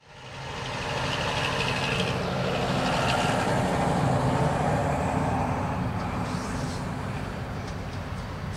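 Diesel engines of a pair of freight locomotives, led by an EMD GT22CW, running steadily under load as they haul a long loaded freight train. The sound fades in over the first second, grows to its loudest about halfway, then eases slightly.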